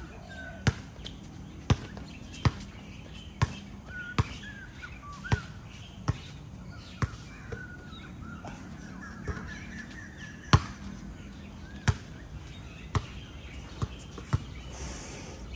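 A basketball bouncing on a court, hit sharply about once a second in an uneven dribbling rhythm, with one harder bounce about ten and a half seconds in.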